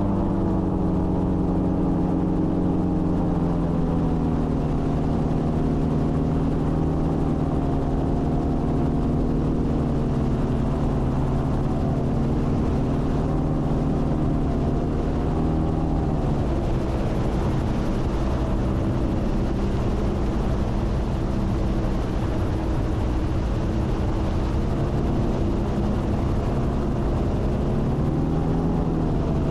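Gyroplane's engine and pusher propeller running steadily. The engine note drops a few seconds in, drops again about halfway through, and rises near the end, with a steady hiss of air behind it.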